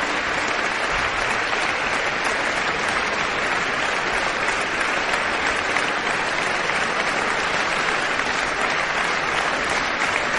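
Concert audience applauding: dense, steady clapping with no letup.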